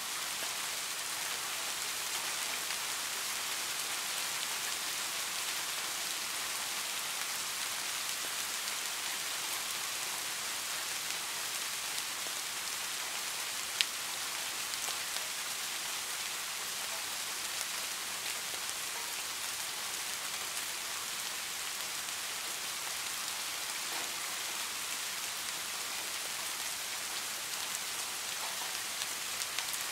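Steady rain falling, an even hiss, with a single sharp tick about halfway through.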